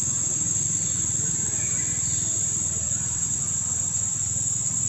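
Steady high-pitched insect drone over an even low rumble, with a few faint short chirps.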